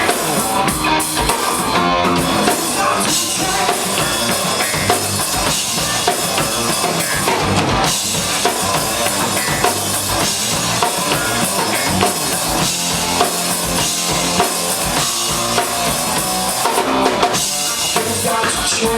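A live rock trio plays an instrumental passage between sung lines, with the drum kit to the fore: bass drum and snare hits over bass and guitar.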